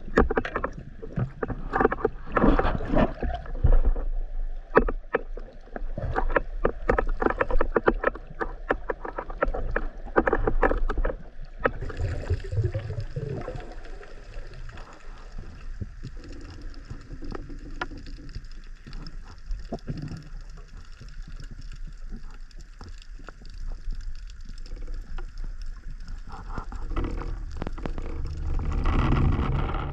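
Seawater splashing and sloshing, with irregular knocks for about the first twelve seconds, then a steadier, quieter hiss of water.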